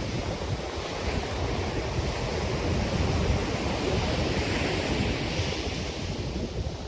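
Caribbean surf breaking and washing up the beach, one wave's hiss swelling in the middle and fading toward the end, under a steady low rumble of wind buffeting the microphone.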